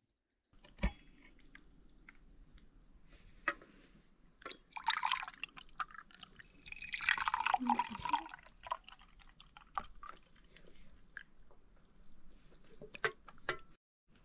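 A white drink poured from a metal jug into stainless-steel cups, two pours of a second or so each, near the middle, among sharp clinks of the metal cups and jug.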